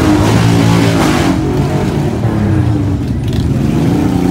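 Motorcycle engines running and revving as bikes ride slowly past, the engine pitch rising and falling.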